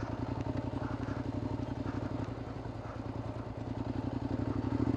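Suzuki SV650S's V-twin engine running steadily at low revs, swelling a little near the end.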